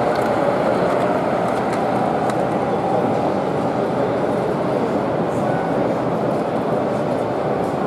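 A model train running on the layout, a model Class 55 Deltic diesel hauling a rake of coaches, heard as a steady, even running noise over the general background noise of the exhibition hall.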